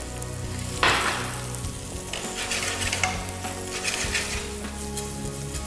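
Arborio rice poured into a hot pan of frying onion. The sizzle surges loudly about a second in as the grains hit the oil, then keeps sizzling while a wooden spoon stirs the rice around the pan.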